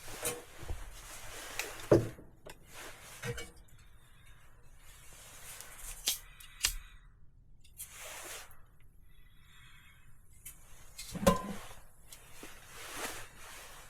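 Scattered knocks and clicks with a few short rustling hisses: hands working with the metal stove and a piece of cardboard while relighting an oil drip stove.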